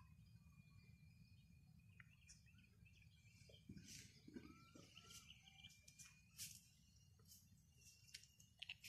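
Near silence: faint rural ambience with a low rumble, a few faint bird chirps and scattered light clicks, the clicks more frequent from about halfway through.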